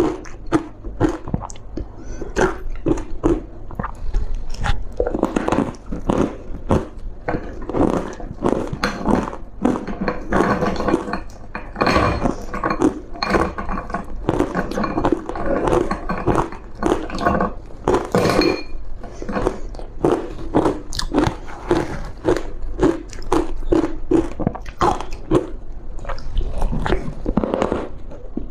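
Close-miked biting and chewing of thin, matcha-powder ice: a fast run of crisp crunches, several a second, thickening into busier chewing in stretches.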